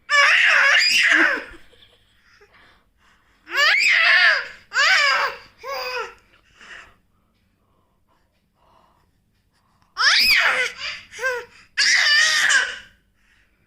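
Baby laughing and squealing in high-pitched bursts, with a pause of a few seconds in the middle.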